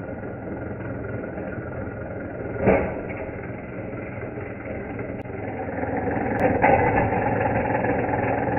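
Small battery-powered motor and gear mechanism of a 1960s toy bowling coin bank whirring steadily as the bowler figure swings. There is one sharp clack about two and a half seconds in. The mechanism grows louder with rattling clicks from about six and a half seconds in.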